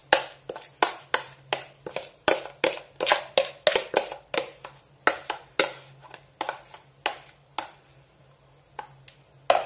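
A metal spoon scraping and knocking against the inside of a plastic bowl as thick creamy ice cream mixture is scraped out, in quick strokes about three a second. The strokes thin out to a few after about eight seconds.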